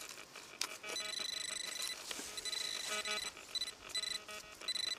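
Metal detector beeping in rapid, high-pitched pulses that stop and start again, sounding over a metal target buried in the hole.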